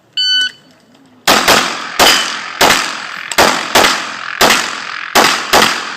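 An electronic shot timer beeps once, then a 9mm Glock 17 Open-division race pistol fires quick pairs of shots, about a dozen in all, each shot ringing out briefly.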